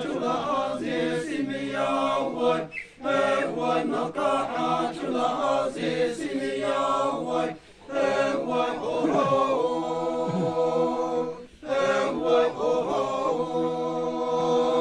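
Group of men chanting a traditional folk song together, unaccompanied, in long held phrases with brief breaks between them about every four seconds.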